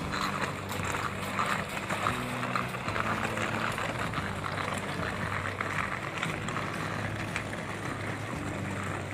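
Outdoor ambience: a steady low mechanical hum with the rumble and rattle of wheeled suitcases rolled over concrete.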